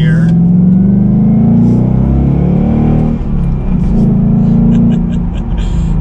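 Ford Mustang GT's 5.0-litre Coyote V8 under hard acceleration with its active exhaust valves open, heard from inside the cabin. The revs climb, dip at a gear change about three seconds in, then climb again.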